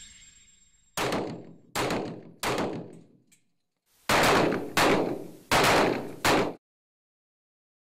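Handgun shots: three shots about a second in, each under a second apart, then four louder shots from about four seconds in at the same pace, the last one cut off abruptly.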